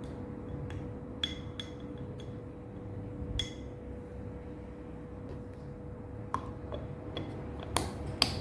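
Scattered clinks and light knocks of glass or hard containers being handled and set down, several in the first half and a quicker, louder run near the end, over a faint steady hum.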